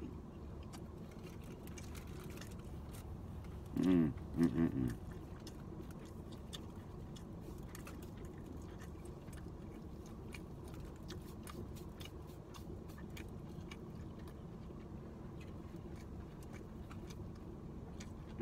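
Chewing and mouth sounds of a man eating a croissant club sandwich, with faint soft clicks scattered through, over a steady low hum. About four seconds in, a brief voiced sound breaks in twice.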